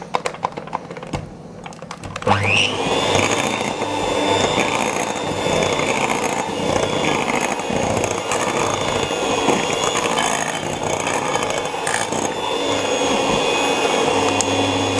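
Electric hand mixer spinning up with a quick rising whine about two seconds in. It then runs steadily as its beaters mix flour into cake batter in a glass bowl, and stops near the end. A few light clicks come before it starts.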